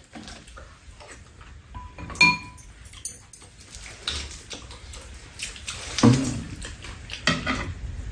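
Metal chopsticks and spoons clicking against bowls and a metal serving tray during a meal, with one short ringing clink about two seconds in, among soft chewing noises.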